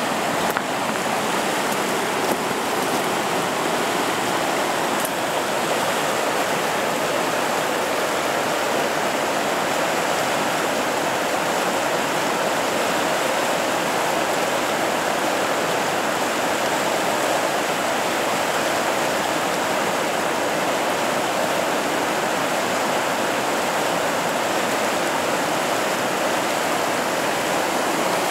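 Whitewater rapids on a river, a steady, unbroken rush of water.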